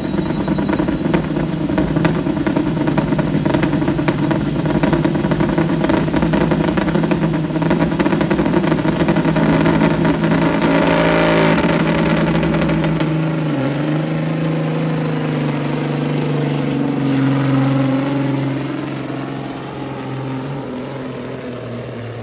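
Semi truck's diesel engine at full throttle pulling a weight-transfer sled, with a whine rising steadily in pitch over about the first ten seconds. After that the engine note changes and the sound fades as the truck moves off down the track.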